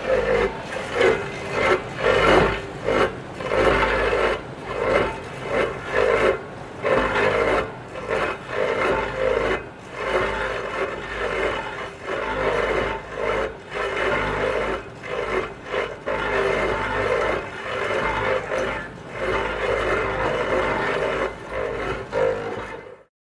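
Rhythmic rasping strokes, about two a second, of a hand tool worked back and forth against a surface. They stop abruptly near the end.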